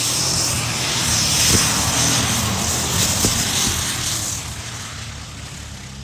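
Modified pulling tractor's engine running at full power as it drags the weight-transfer sled down the track, a loud, steady noise with a strong hiss that fades from about four seconds in as the tractor gets farther away.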